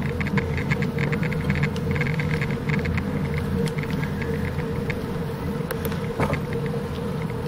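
Bicycle riding on pavement, heard from a camera on the bike: steady wind and rolling noise with a faint hum and light, irregular clicking rattles.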